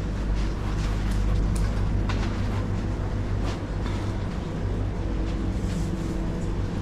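Supermarket background noise: a steady low hum with faint music and a few soft clicks.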